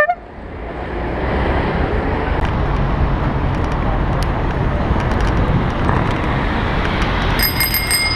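Steady road-traffic and rushing air noise heard from a bicycle riding in city traffic. Near the end comes a quick run of high, ringing strikes from a bicycle bell.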